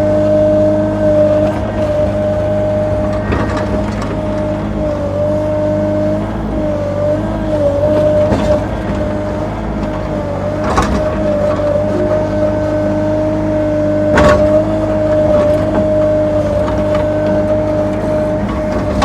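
Sany SY35U mini excavator's diesel engine running at a steady speed with a constant hum, its pitch sagging briefly a few times. Four short, sharp knocks stand out over it.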